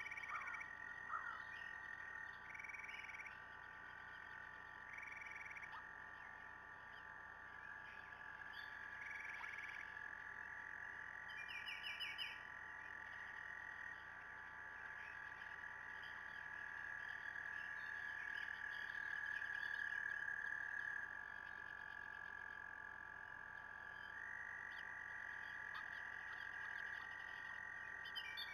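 A faint frog chorus: long, steady trills that overlap one another, with a few shorter trills and a brief bird chirp about twelve seconds in.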